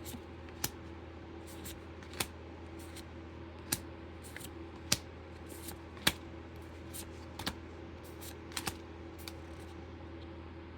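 Sharp, irregular clicks and snaps, about one a second, of Pokémon trading cards and a foil booster-pack wrapper being handled.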